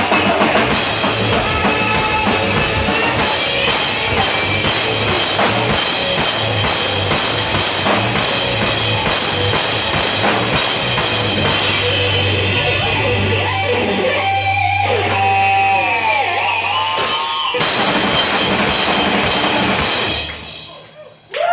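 Rock music with a drum kit and electric guitar. In the last third the full band thins out, leaving sliding, bending guitar notes, and the music dies away near the end.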